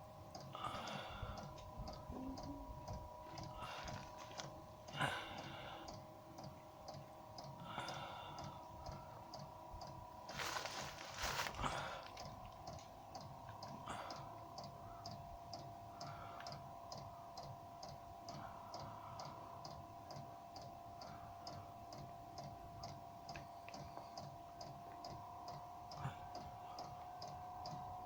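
Diesel heater's fuel dosing pump ticking at a steady pace over the steady hum of the heater's blower fan, during a start attempt that fails to ignite. There is a brief louder rush of noise about ten seconds in.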